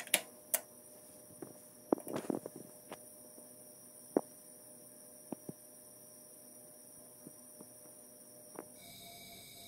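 A scatter of light clicks and knocks from the clear acrylic lid of a micropipette puller being swung shut and the instrument being handled, with a cluster about two seconds in, over a faint steady electrical hum.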